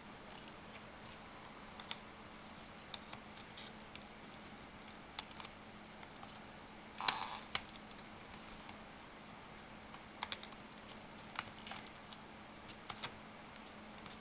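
Scattered light clicks and taps of a plastic power-module housing and its circuit board being handled and pried apart, with a louder cluster of clicks about seven seconds in. A faint steady hum runs underneath.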